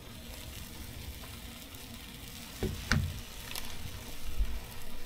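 Food sizzling steadily as it fries on a Blackstone 17-inch griddle top, with a few sharp clicks about three seconds in and a low knock near the end.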